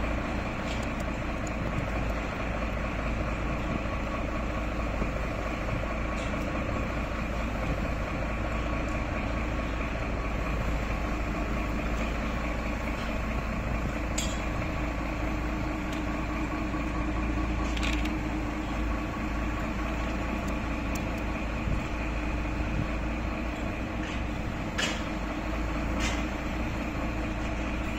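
Diesel engine of a crane truck running steadily with a deep rumble, keeping the truck-mounted hydraulic crane powered. A few sharp knocks come through, two of them close together near the end.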